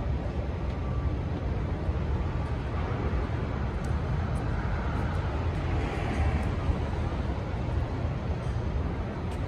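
City street traffic: a steady low rumble of engines and tyres, with a higher sound that swells and fades away in the middle.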